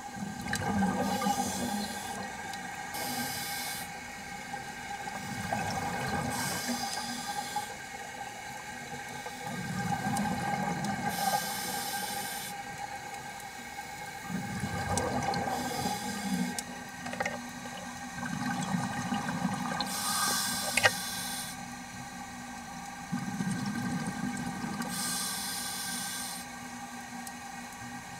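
Underwater scuba breathing through an open-circuit regulator: a hissing inhale about every four seconds, each followed by the low bubbling rumble of exhaled air, over a faint steady hum.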